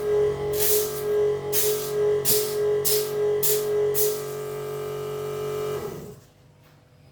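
Background instrumental music with a steady drum beat. It stops about six seconds in.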